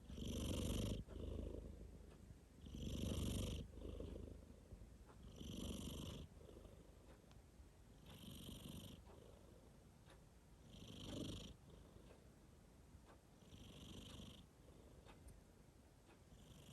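A sleeping cat snoring: a rhythmic snore with each breath, about one every two and a half seconds, each under a second long, growing fainter toward the end.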